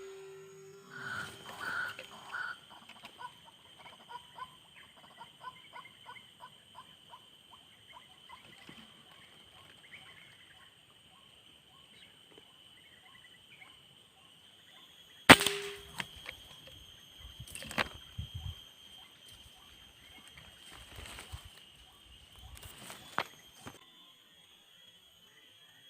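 A bird calling in a run of short repeated notes, then a single sharp gunshot about halfway through, with a few lighter knocks after it. A steady high insect drone runs underneath.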